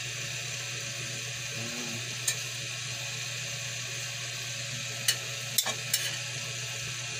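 Steady hiss of a pot of water heating on the stove, with a few sharp clicks of metal tongs against the pot as whole fish are laid into the water, most of them near the end.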